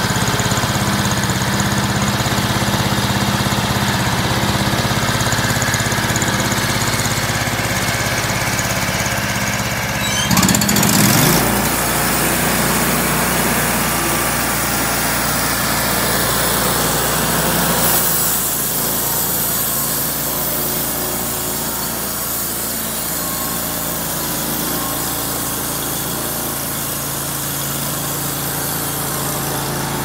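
Homemade band sawmill's gasoline engine running steadily. About ten seconds in there is a brief louder burst and the engine note shifts, and by the end the band blade is cutting through a walnut log.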